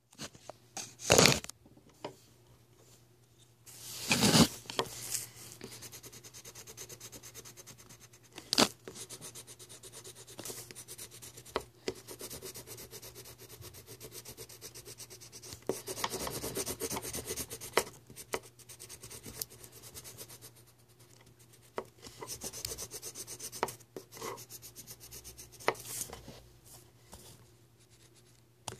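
Marker pen rubbing rapidly back and forth over a surface, colouring in, in long runs of scratchy strokes. A few short knocks come along the way.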